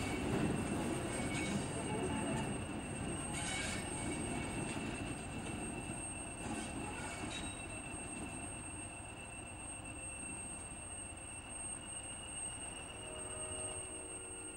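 Class 20 diesel locomotive hauling a train of coaches: the engine runs and the wheels rumble on the track, the sound slowly getting quieter.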